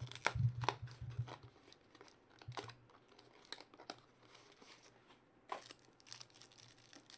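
Foil trading-card pack wrapper crinkling and tearing as it is opened and the cards are pulled out, in scattered sharp crackles, busiest in the first second or so and again about five and a half seconds in.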